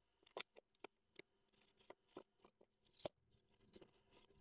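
Faint clicks and taps of hands handling a Canon R50 camera fitted with a lens, with the sharpest clicks about half a second in and about three seconds in.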